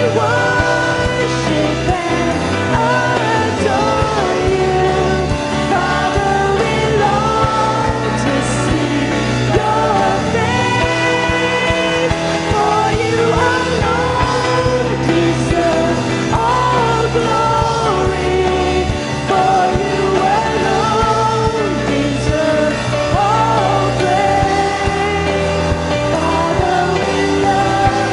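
Live church worship band playing a praise song with singing over a steady bass and guitar accompaniment.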